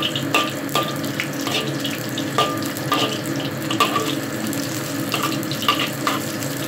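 Ginger slices sizzling in hot oil in a black wok, with a metal spatula scraping and clinking against the wok a dozen or so times at irregular intervals, each clink ringing briefly.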